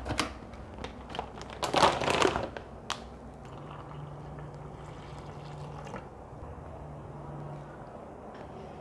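Plastic Milo sachets crinkling and rustling as they are handled, in a few sharp bursts. Then hot water is poured from a kettle into a mug of Milo powder, a steadier, quieter pouring sound.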